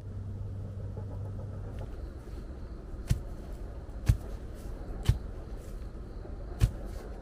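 Four sharp knocks, roughly a second apart with the last after a longer gap, over a steady low rumble.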